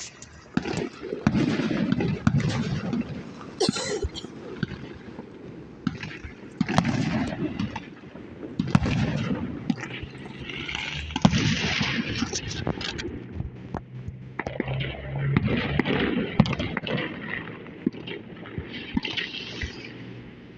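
Fireworks bursting at irregular intervals, sharp bangs scattered over about twenty seconds, with voices murmuring in between.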